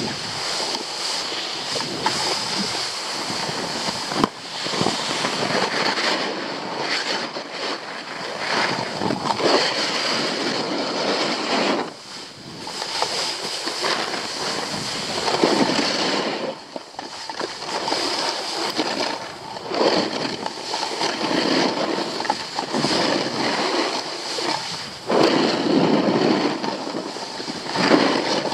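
Wind rushing over the microphone of a camera moving fast down a ski slope, mixed with the hiss and scrape of edges on packed snow, surging and dropping with each turn.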